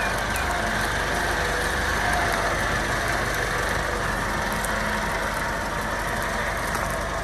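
Al-Ghazi tractor's diesel engine running steadily while driving a wheat thresher machine, a continuous mechanical drone.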